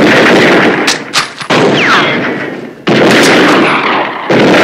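Four rifle shots about a second and a half apart, each sudden and loud with a long echoing tail that dies away before the next.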